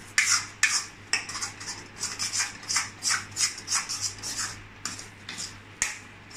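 Steel spatula scraping and stirring thick semolina kesari in a metal kadai, about three strokes a second: the kesari being sautéed in ghee.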